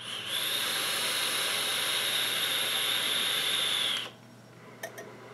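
A long draw on a 454 Big Block RDA dripping atomizer, with a steady hiss of air pulled through its airflow and over the firing, juice-soaked coil. It lasts about four seconds and stops suddenly, followed by two faint clicks.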